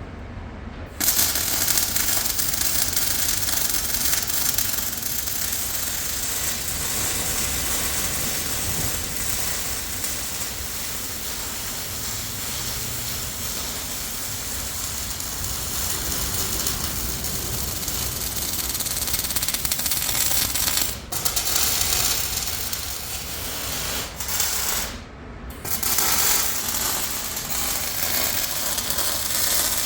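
MIG welding on heavy steel section: the arc crackles and hisses steadily through long stitch-weld runs, stopping briefly twice in the later part.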